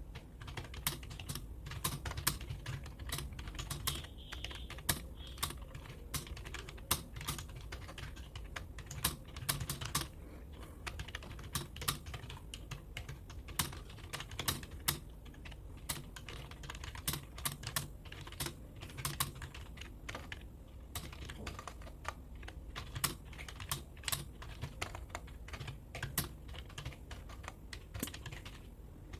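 Computer keyboard keys clacking in quick, irregular runs of keystrokes: continuous touch-typing during a timed typing-speed test.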